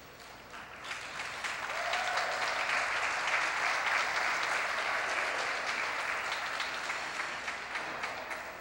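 Spectators applauding as a figure skating program ends. The clapping builds about a second in and tapers off near the end.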